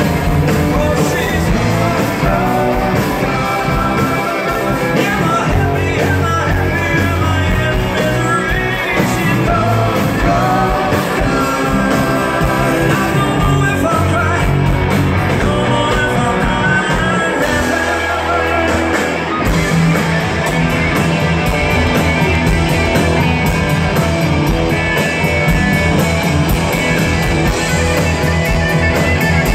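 A rock band playing live through a concert PA: electric guitars over bass and drums, with singing. About 18 seconds in the band drops to a held low note for a couple of seconds, then comes back in.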